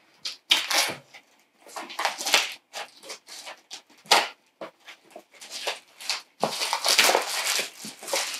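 Plastic shrink-wrap crackling and tearing in irregular bursts as it is peeled off a cardboard game box. The crinkling is densest near the end.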